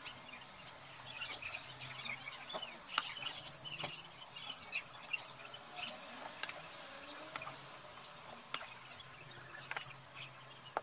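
Soldering the connecting strips onto a battery pack: faint crackling and sizzling from the iron and flux, with scattered light clicks over a faint low hum, and a sharp click at the end.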